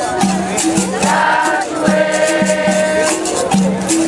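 Live Capoeira Angola bateria: berimbaus twanging back and forth between two notes in a steady rhythm, with caxixi shakers rattling and percussion ticking along. Voices sing in chorus about a second in and again near the end.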